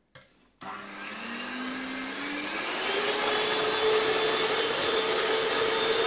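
Electric hand mixer starting up about half a second in and beating egg whites. Its motor whine rises in pitch over the first two seconds and then runs steady.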